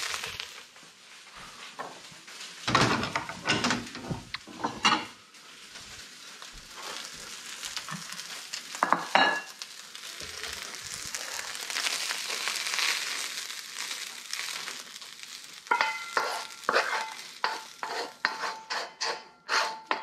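Fried rice sizzling in a seasoned wok while a wooden spatula stirs and scrapes it. Near the end comes a quick run of sharp knocks with a short metallic ring as the spatula scrapes and taps the rice out of the wok onto a plate.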